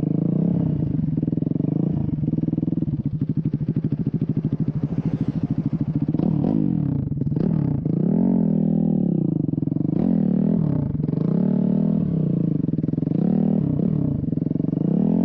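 Dirt bike engine running while riding, loud and steady at first, then its pitch rising and falling several times in the second half as the throttle is opened and closed.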